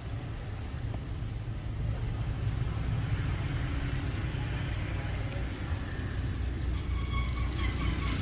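Steady low rumble of road traffic and vehicle engines, with a faint pulsing engine note coming in near the end.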